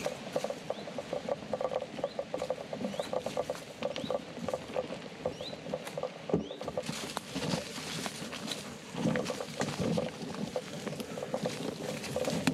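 Rustling and crackling of leaves, twigs and undergrowth, with footsteps on a leaf-strewn dirt path, as a mountain bike is pushed along an overgrown trail. The rustling grows denser and louder about halfway through, as foliage brushes close past.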